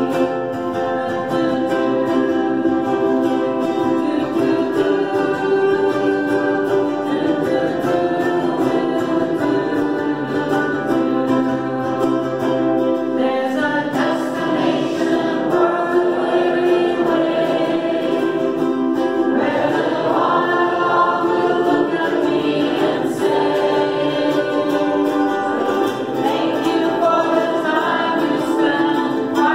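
Several voices singing a song together, accompanied by strummed ukuleles.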